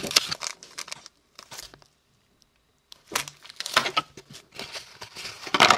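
Clear plastic wrapping crinkling and rustling as it is pulled off a small plastic packaging box. It comes in several short bursts with gaps between them, and the loudest is near the end.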